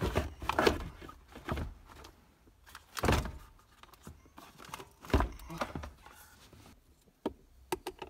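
Hard plastic knocking and scraping as a 2000 Subaru Outback's air-conditioning box is pulled and wiggled out from behind the dashboard, with several dull thunks, the loudest about three and five seconds in.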